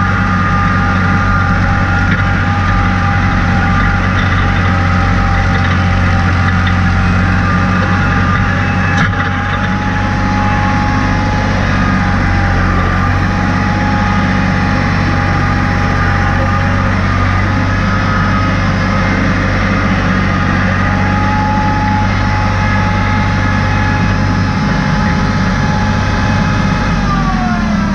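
Tractor engine running steadily as it pulls a three-point mounted moldboard plow through the soil. Near the end the engine note falls as the revs drop.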